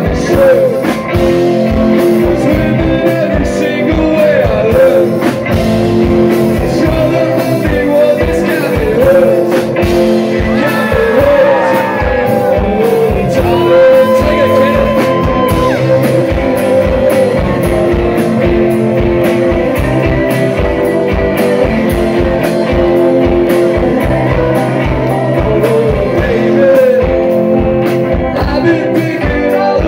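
Indie rock band playing live: electric guitars, drums and sung vocals, loud and continuous.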